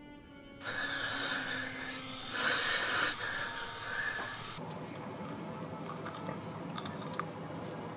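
A pitched music drone cuts off about half a second in and a loud hiss takes over, with a high steady whine on top. About four and a half seconds in it changes to a softer, lower hiss with scattered small clicks.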